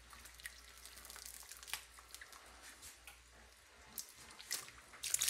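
Chitlins boiling in a large aluminum stockpot on their second boil, with wet squishes and dripping as metal tongs lift them and drop them back into the liquid. Scattered light clicks throughout, coming more often near the end.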